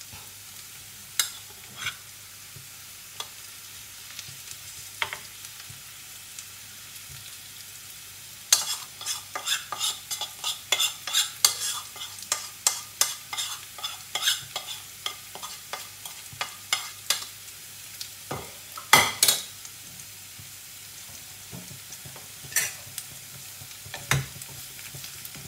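Chicken pieces and onions sizzling steadily in hot oil in a frying pan. From about a third of the way in comes a long run of quick clicks and scrapes as the marinade is scraped out of a bowl into the pan, followed by a few louder knocks of a utensil on the pan near the end.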